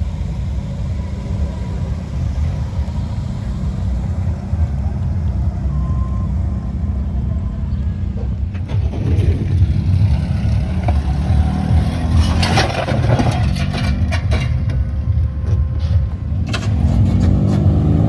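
Car engines and exhausts running with a loud, steady low rumble, with a patch of sharp crackles in the second half. Near the end an engine revs, its pitch rising.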